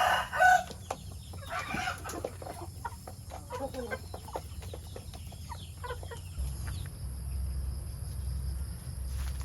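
Backyard chickens clucking: a loud call right at the start, then a run of short clucks that thin out after about five seconds, with a steady low hum coming in after about six seconds.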